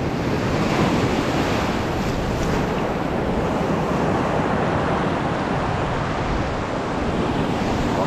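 Blizzard wind buffeting the microphone over sea surf washing on the rocks: a steady, unbroken rush of noise.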